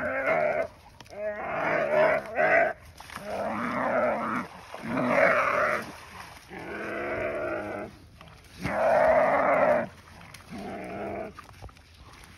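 A nyala bleating in distress while an African wild dog bites it: about seven loud, drawn-out calls of roughly a second each, getting weaker towards the end.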